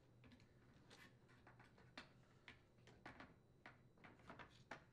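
Faint, irregular clicks and light taps of a Samsung dishwasher's plastic control panel and wiring being handled and set back into place on the door panel.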